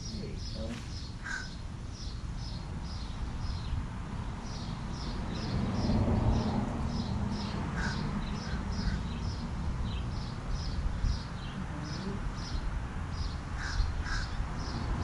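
Birds calling: a steady run of short, high chirps about four a second, with a few lower calls near the start and again near the end, over a low outdoor rumble.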